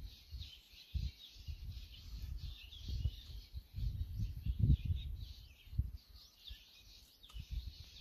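Small songbirds chirping and twittering busily throughout, with irregular low thumps and rumbles underneath, the loudest a little before five seconds in.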